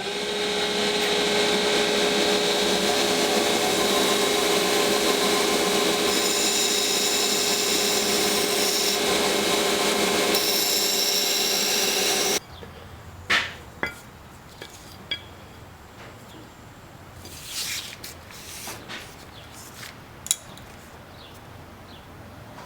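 A power tool runs steadily at a constant pitch for about twelve seconds, then stops abruptly. A few light clicks and knocks follow.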